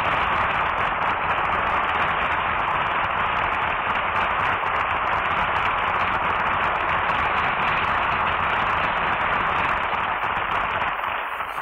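Studio audience applauding steadily after the closing number, easing off slightly near the end.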